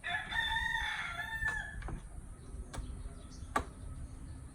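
A rooster crowing once, a call of just under two seconds. A few sharp clicks or knocks follow, the loudest about three and a half seconds in.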